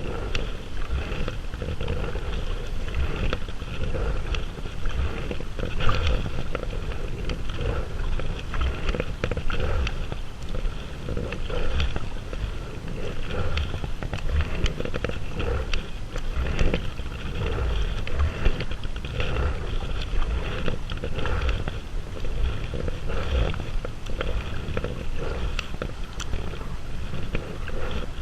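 Wind buffeting the microphone in a steady, fluctuating low rumble, over the rush of water around a kayak on the river.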